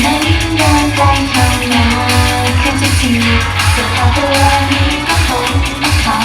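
Loud pop song over a live stage sound system, with a steady bass beat and a sung vocal line.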